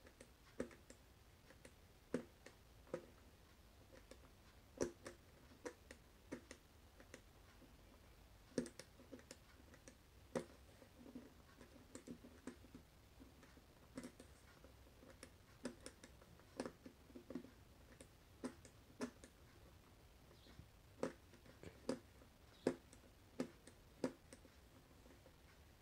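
Irregular small plastic clicks from the hand-setting knob and gear train of a quartz wall clock movement being turned to advance the hands, about one or two clicks a second.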